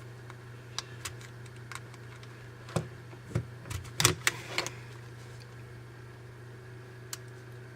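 Small plastic clicks and snaps of a guitar pick being worked around the seam of a Sony Ericsson W580i's plastic housing, prying its clips loose, with a cluster of louder clicks about three to five seconds in. A steady low hum runs underneath.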